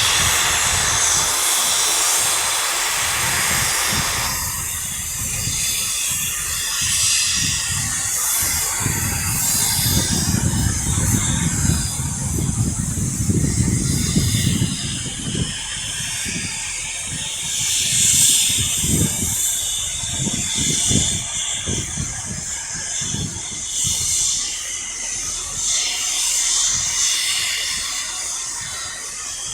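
Steam locomotive standing in the station letting off steam: a loud hiss that starts suddenly and thins after about four seconds to a fainter, higher hiss that carries on. Irregular low rumbling comes and goes through the middle.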